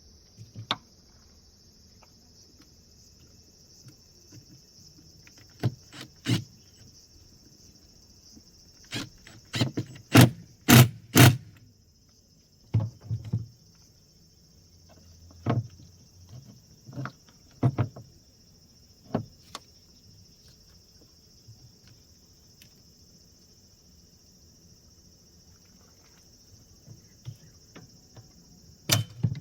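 Scattered sharp clicks and knocks, the loudest a quick cluster of three or four about ten seconds in, over a steady high-pitched drone.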